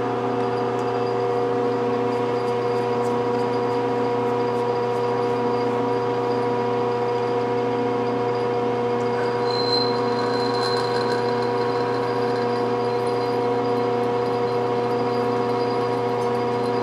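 Metal lathe running steadily while a pilot drill is fed into stainless steel, a constant machine hum of several fixed tones. A brief high squeal rises from the cut about ten seconds in.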